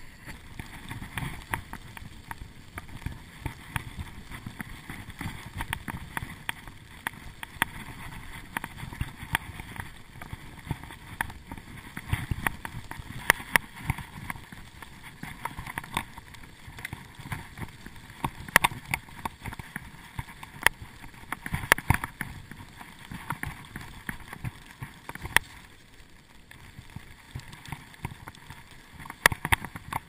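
Bicycle rolling along a snow-covered trail: a steady low rumble of tyres and wind on the microphone, with frequent sharp clicks and rattles as the bike jolts over bumps.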